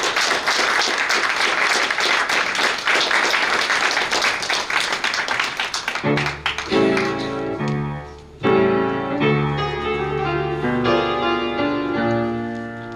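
Audience applauding, then about six seconds in a piano starts playing an interlude of separate notes and chords.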